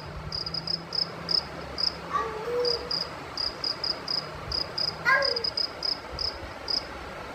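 A cricket chirping in short, high pulses, several a second in an uneven rhythm.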